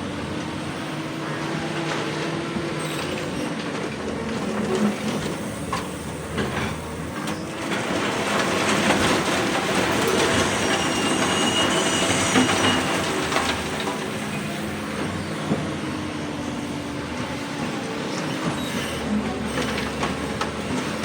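Hydraulic crawler excavator running under load in a rock quarry, with a steady diesel engine note. Metallic scraping and knocking from the bucket and tracks on rock builds up midway, along with a thin high squeal for a few seconds.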